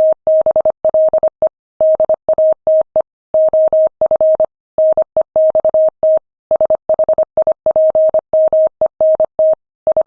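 Morse code sent at 25 words per minute: a single steady mid-pitched tone keyed on and off in quick dots and dashes, with short gaps between letters and longer ones between words.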